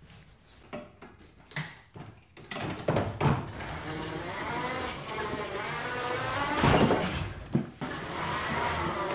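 Ryobi ZT480e battery-electric zero-turn mower's drive motors whining as it pulls forward and turns, the pitch wavering with the speed. A few light clicks and knocks come before it starts moving, and there is a sharp knock about seven seconds in.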